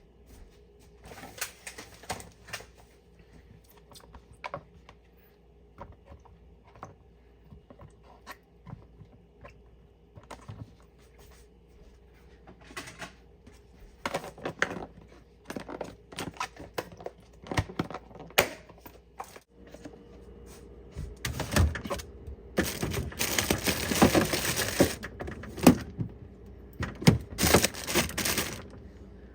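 Groceries being handled and put away: scattered light clicks and knocks of packages and containers being set down, then a longer stretch of plastic packaging rustling and crinkling near the end.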